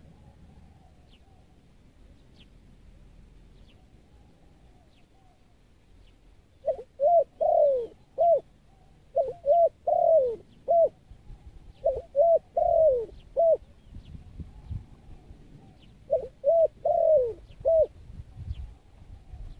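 Spotted dove cooing: starting about a third of the way in, four phrases of a few quick coos, each ending in a longer falling note. Faint high chirps of small birds before the cooing begins.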